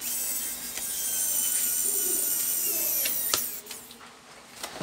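Small electric screwdriver whining as it turns a screw in a laptop's plastic bottom cover. The pitch sags a little near the end, and it stops after about three seconds with a click.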